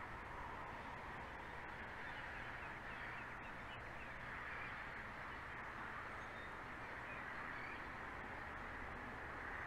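Faint, steady outdoor ambience: an even hiss with faint, scattered bird calls.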